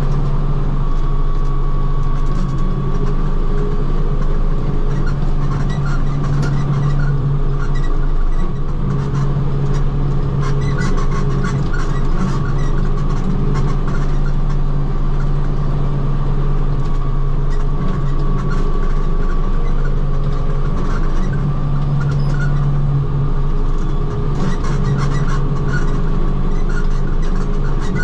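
Tractor engine running steadily with a PTO-driven rotary cutter (bush hog) mowing grass and brush, a constant low drone. Scattered sharp ticks come through over it, thickest about ten and twenty-five seconds in.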